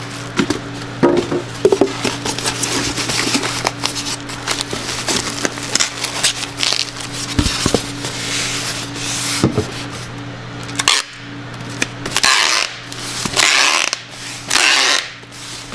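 Crinkling and rustling of a foil-lined insulated bag and handling of a styrofoam box, with scattered clicks and scrapes. Near the end, packing tape is pulled off a hand tape dispenser in three long pulls.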